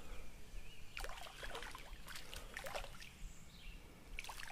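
Light, intermittent water splashing from a small hooked fish being reeled in at the creek's surface, with a faint steady creek background.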